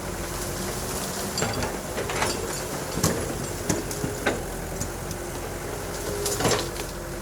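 Excavator's diesel engine running steadily, with about six sharp knocks and clanks spread through, the loudest about three seconds in and again near the end.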